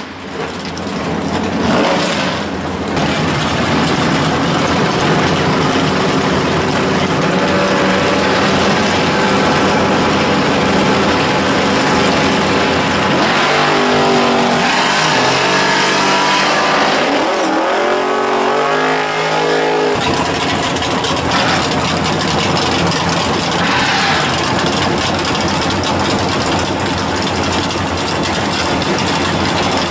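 Loud drag-car V8 engines running at the starting line, revved up and down repeatedly in the middle stretch. The sound changes abruptly about 20 seconds in as another car is heard.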